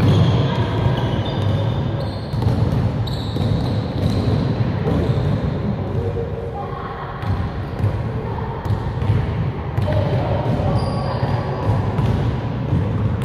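Basketball dribbled on a gym floor, sharp irregular bounces echoing in a large hall, with short high sneaker squeaks in the first few seconds.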